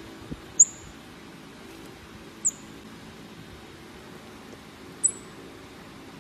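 Baby squirrel monkey giving three short, very high-pitched chirps about two seconds apart while being fed from a syringe, over a steady low hum.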